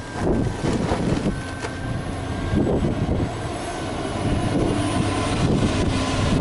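Cat 330D hydraulic excavator's diesel engine running steadily under load as the machine swings and raises its boom.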